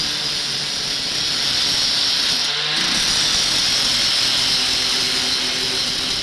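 Angle grinder with an abrasive multi-purpose wheel cutting or grinding steel: a loud, steady, high grinding hiss that eases off briefly about two and a half seconds in.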